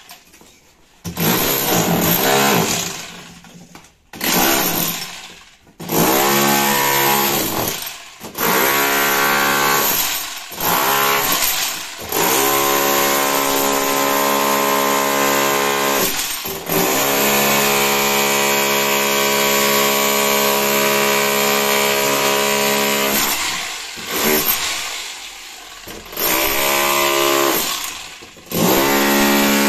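Corded SDS rotary hammer chiselling brick masonry, its motor and hammer mechanism running in bursts of a few seconds with one long run of about ten seconds in the middle. The pitch drops each time it winds down between bursts.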